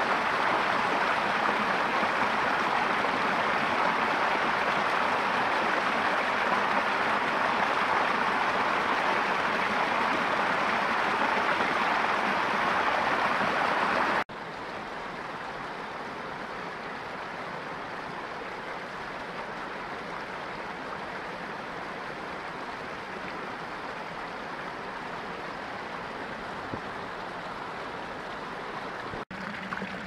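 A small icicle-fringed stream running over rocks, a steady splashing flow of water. About halfway through the sound steps down abruptly to a quieter, softer flow.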